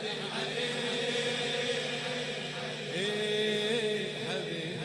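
Male voice chanting a Shia mourning elegy (latmiya) in long held notes, a new note taken up about three seconds in.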